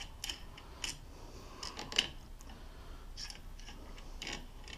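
Small metal front-wheel fasteners being handled: scattered light clicks and clinks at irregular intervals, the sharpest about two seconds in.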